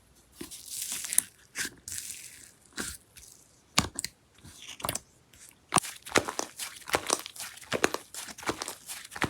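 Slime being squeezed and stretched by hand, giving soft hissing stretches and then a quickening run of sharp clicks and pops as air is pressed out.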